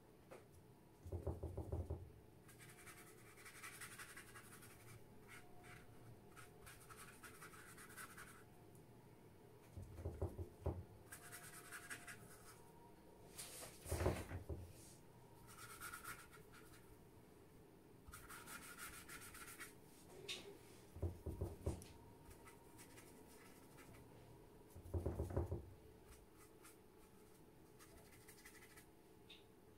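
Watercolor brush working on paper: soft, scratchy brushing swishes, with about five dull knocks at intervals.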